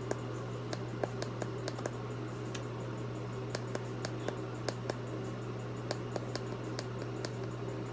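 Light, irregular clicks and ticks of handling, a few a second, over a steady low hum.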